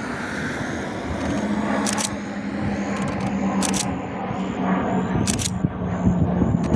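Steady engine noise with a low hum setting in about a second in, broken by sharp clicks roughly every one and a half seconds.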